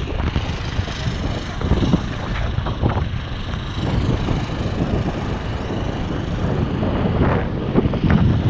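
Wind buffeting the camera microphone: a continuous, uneven low rumble that swells and dips.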